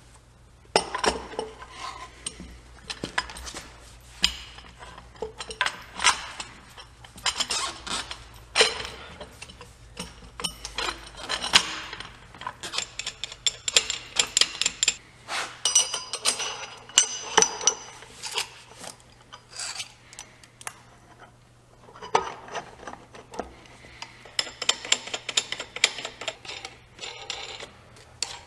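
Steel bearing-puller parts clinking, knocking and rubbing in irregular handling sounds as a bearing splitter, threaded rods and nuts are fitted around a drive shaft's worn carrier bearing.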